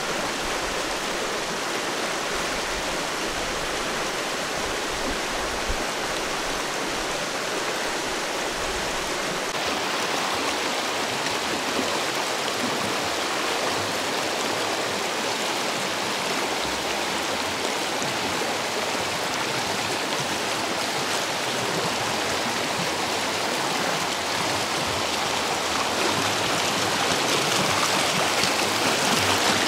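Fast mountain river water rushing steadily, growing slightly louder near the end.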